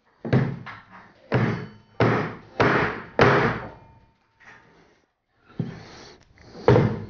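Mallet blows on a wooden board, roughly one every half second to second with a short pause around the middle, driving small magnets into holes drilled in the wood.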